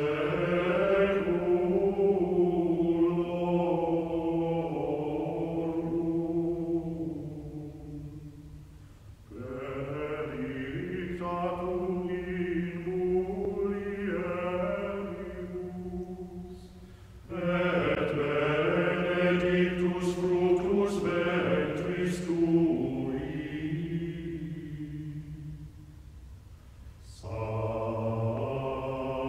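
Soundtrack of slow chanting, with long held notes that move in steps. The chant comes in phrases of several seconds, each fading out before the next swells in, about three times.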